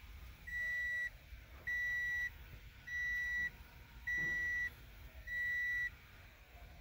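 A 2014 Toyota Corolla's dashboard warning chime beeping five times at one steady pitch, each beep about half a second long and about 1.2 seconds apart, with the ignition in accessory mode.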